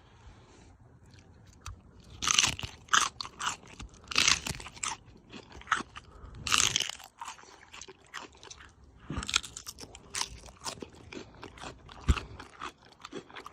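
A run of irregular, sharp crunches starting about two seconds in and going on in uneven clusters, with a couple of duller thumps among them.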